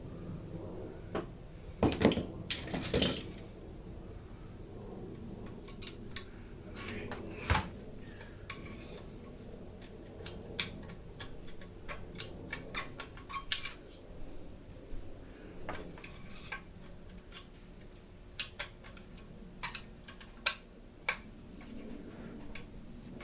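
Hand tools and small metal parts of a two-stroke leaf blower engine clinking and knocking as it is taken apart. A louder clatter comes about two seconds in and a single sharp knock near the middle, with scattered light clicks between.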